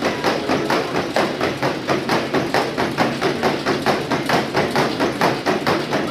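Horse's hooves striking a treadmill belt at a trot: a steady, rapid run of even knocks, several a second, that cuts off abruptly at the end.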